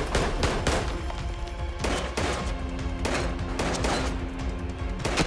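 Gunshots from an action-film soundtrack, several sharp shots at uneven intervals, over dramatic film score music with a low note held through the second half.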